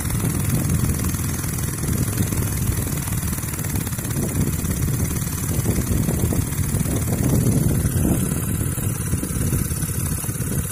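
Small stationary diesel water-pump engine, converted to run on LPG, running steadily while its gas feed is trimmed for stable running.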